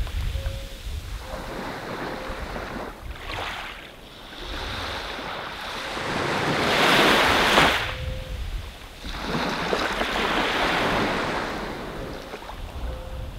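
Ocean surf washing onto a sandy beach in slow swelling surges, the biggest about seven seconds in, with some low wind rumble at the start and near the end.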